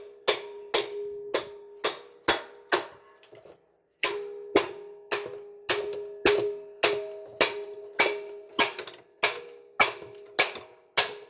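Hammer striking a Chevrolet Aveo's cast-iron rear brake drum over and over, about two blows a second with a short pause about a third of the way in, the drum ringing after each blow. The rusted drum is seized on the hub and is being knocked loose.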